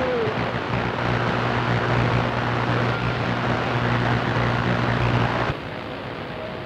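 CB radio receiving during skip (DX) conditions: loud static with a steady droning hum through the speaker. About five and a half seconds in, the noise drops and only fainter hiss with thin steady whistles remains.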